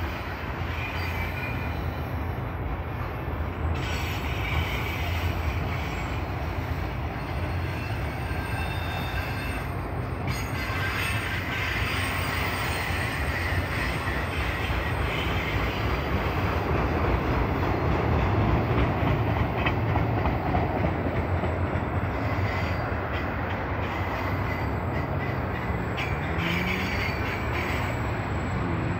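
Freight cars of a long freight train rolling past on the rails: a steady rumble of steel wheels over track, with a faint high wheel squeal at times.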